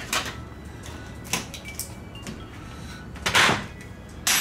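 A handful of short, sharp clicks and knocks as an LED backlight strip is pressed down onto the locating studs of a TV's metal back panel and handled; the loudest and longest knock comes a little over three seconds in.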